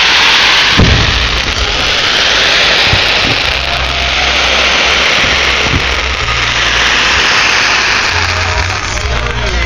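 Fireworks barrage: a dense continuous crackling over a low rumble, with a few sharper bangs about a second, three and a half and six seconds in.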